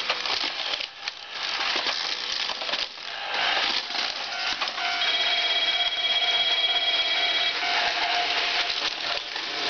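Battery-powered toy train set on plastic track: motor whirring and plastic parts clattering, with a steady electronic tone that sounds for about two and a half seconds in the middle.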